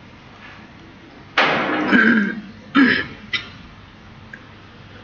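A man clearing his throat with rough coughs: a longer burst about a second and a half in, then a shorter one a little over a second later.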